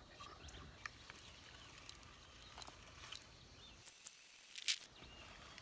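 Light scattered clicks and metal rattles from an EarthWay push garden seeder being handled and adjusted, with one sharper click near the end.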